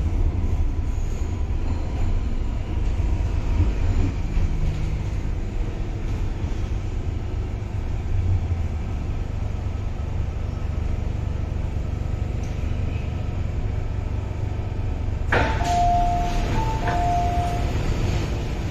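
MTR Kwun Tong line Metro-Cammell M-Train running, a steady low rumble heard from inside the car. About 15 seconds in, a click is followed by a two-tone chime sounded twice.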